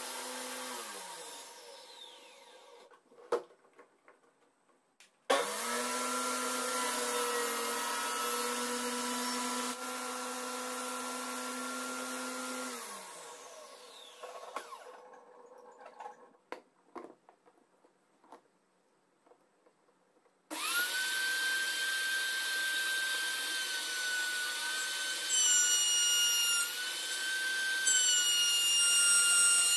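A circular saw motor, used as a homemade table saw, running steadily, then switched off and winding down. It is started again about five seconds in, runs for about eight seconds and winds down again, with a few knocks in between. About twenty seconds in, a higher-pitched power tool starts and runs, its pitch wavering slightly.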